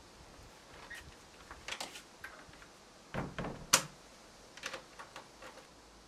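Lock and latch of a wooden shed door being worked by hand: a string of short metallic clicks and knocks, the loudest a quick cluster about three and a half seconds in.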